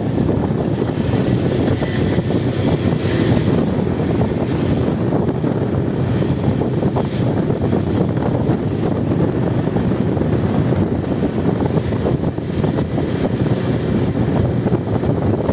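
Motorbike riding at a steady pace: a continuous low engine and road rumble mixed with wind buffeting the microphone.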